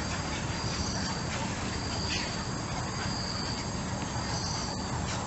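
Insects chirring in a high, steady trill that breaks off and resumes every second or so, over a constant background hiss and low rumble.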